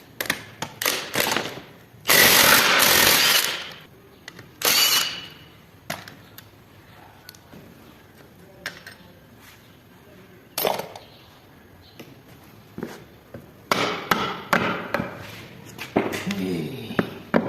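Metal parts of a Land Rover Defender transfer case clinking and knocking as it is taken apart. About two seconds in a power tool runs in one loud burst of about a second and a half, with a shorter burst a couple of seconds later.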